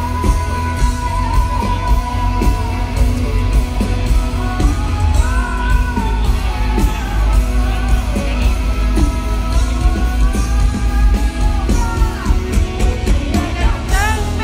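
Live rock song played loud through a concert sound system: a male singer's voice over electric guitar, heavy bass and a steady drum beat.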